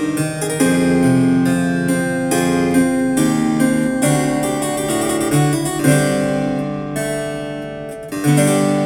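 Classical music with quick harpsichord-like keyboard notes, played back through a small JBL Go 3-type portable Bluetooth speaker.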